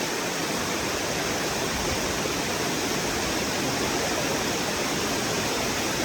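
Small waterfall rushing steadily, a constant even roar of falling water.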